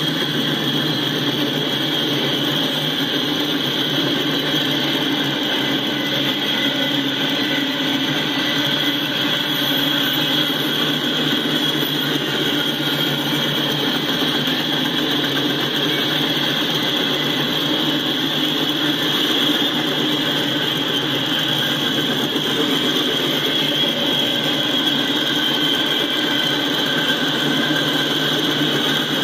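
Freight cars of a passing train rolling by at speed: steady wheel-on-rail rumble with a high ringing tone on top.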